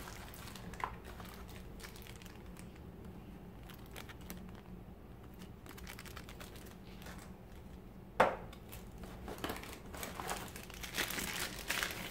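Small clear plastic accessory bags crinkling as they are handled, with faint scattered clicks. There is one sharp knock about eight seconds in, and after it the crinkling grows busier and louder toward the end.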